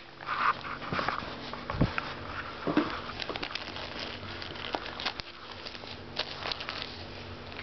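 Dog chewing and tearing at a paper-wrapped gift, the wrapping paper crinkling and crackling in irregular bursts of small clicks.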